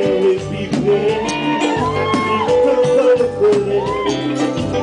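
Live Haitian kompa band playing over a steady beat: drum kit, bass and a melody line gliding above.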